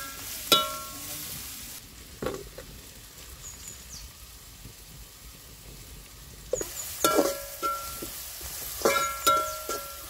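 Metal ladle stirring chopped onion, ginger, garlic and green chilli frying in a metal kadai. The food sizzles, and the ladle knocks and scrapes against the pan, which rings with each strike. It goes quieter between about two seconds in and six and a half seconds in, then the clanks and sizzle pick up again.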